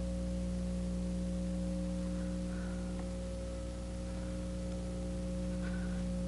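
A steady low drone of several held tones, unchanging in level, with a couple of faint short higher sounds partway through.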